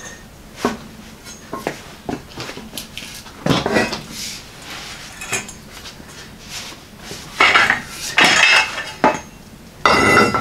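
Steel hand conduit bender and EMT conduit tube clanking and scraping on a concrete floor while the tube is bent and repositioned. The sound is a series of separate metallic knocks, with the loudest cluster about three-quarters of the way through.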